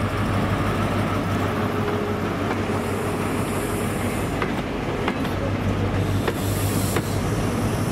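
An InterCity 125 (HST) train rolling slowly into the platform, its coaches passing close by. Its diesel power car drones steadily under a few sharp wheel clicks over rail joints, with hissing twice, about three seconds in and again near the end.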